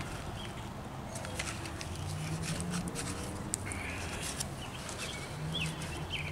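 Soft rustling and light clicks of a paper towel being worked into an opened automotive AC compressor housing by gloved hands, with a few faint bird chirps in the background.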